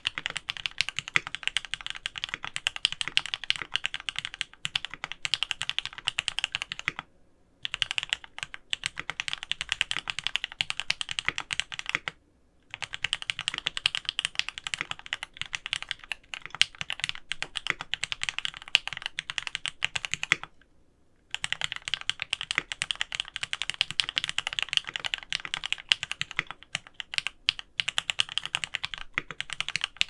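Fast continuous typing on an aluminium gasket-mount mechanical keyboard (Monstargear XO K80 Alu) with Krytox-lubed Gateron X switches, PBT keycaps and foam and tape-mod dampening. Dense key clacks, with three short breaks in the typing.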